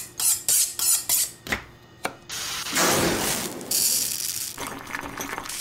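A knife drawn along a honing steel in about six quick strokes. About two seconds in, a steady hiss takes over.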